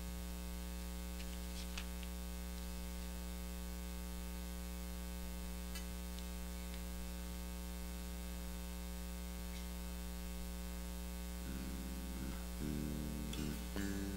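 Steady electrical mains hum in the sound system, with a few faint clicks. Near the end, guitar notes begin.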